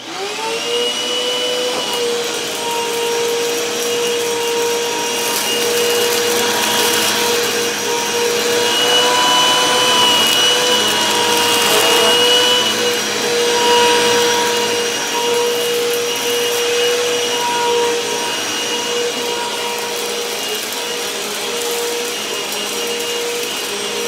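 Eureka Maxima upright vacuum cleaner switched on, its motor spinning up to a steady whine within about a second. It then runs steadily while pushed back and forth over a rug, picking up shredded paper.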